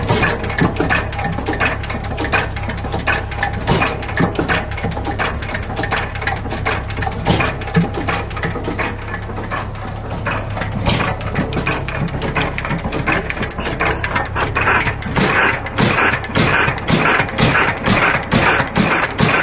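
12 hp Hercules single-cylinder stationary engine running steadily, a low hum under a fast, even clatter of clicks and knocks from its moving parts. The mechanical clicking gets louder near the end.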